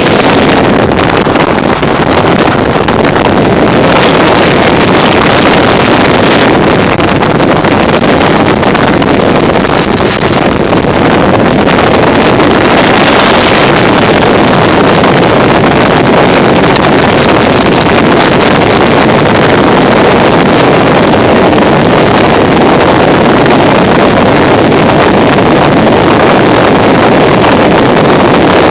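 Motorcycle engines running on the ride, buried under heavy, steady wind noise on the microphone.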